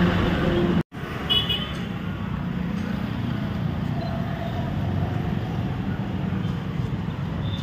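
Steady rumble of street traffic with voices in the background. The sound drops out for an instant about a second in, and a short high-pitched chirp follows soon after.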